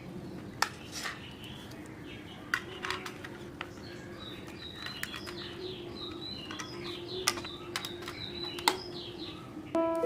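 Small birds chirping faintly, with a handful of sharp, scattered clicks.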